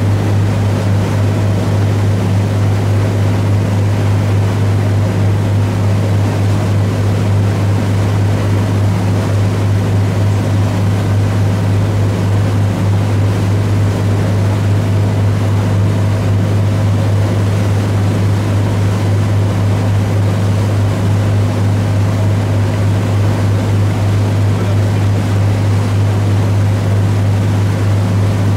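Tour boat's engine running steadily, a loud, even low drone heard on board as the boat moves along the shore.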